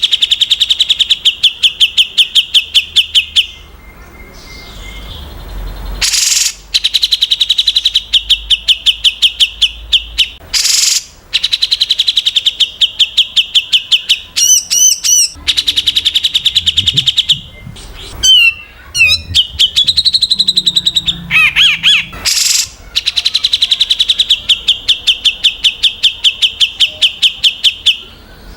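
Songbird singing in long bouts of rapid, evenly repeated sharp notes, about nine a second, broken by a few short harsh bursts and some wavering, warbled whistles: the rapid-fire 'tembakan' phrasing of competition songbirds.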